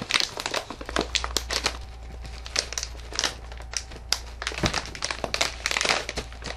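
Plastic snack bag of Goldfish Grahams crinkling and crumpling in irregular bursts as hands struggle to pull it open.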